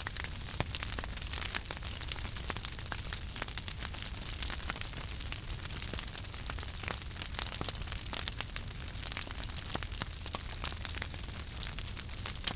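Fire crackling: many irregular small pops and snaps over a steady hiss and low rumble.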